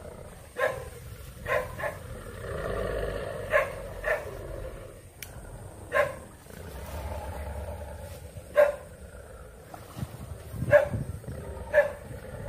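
A dog barking: short sharp barks about every one to two seconds, louder in the second half, with a longer drawn-out growl between them.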